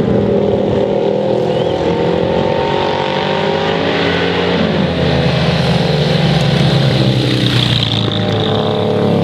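Classic racing motorcycle engines running hard under acceleration, several pitched engine notes layered together, with one bike growing louder as it approaches from about halfway in.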